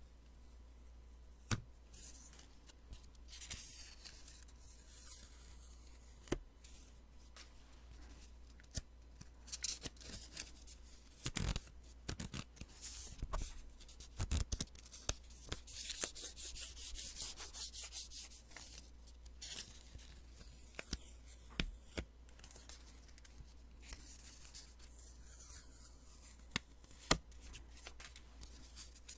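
Post-it sticky notes being peeled and handled: crackly peeling and paper rubbing in several longer runs, with scattered sharp taps and clicks.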